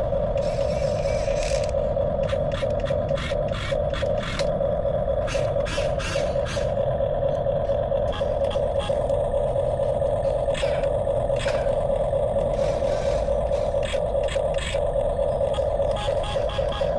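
Small RC model's electric motor and gearbox whining steadily, with many scattered clicks and knocks as pieces of wood scrape and clatter against each other and the model.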